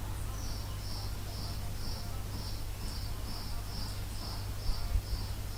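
A short high-pitched chirp repeating evenly about twice a second over a steady low hum, with two low thumps near the end.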